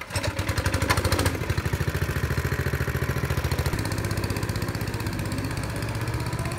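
Small single-cylinder go-kart engine starting up, loud and fast-pulsing for about the first second and a half, then settling into steady running as the kart drives off.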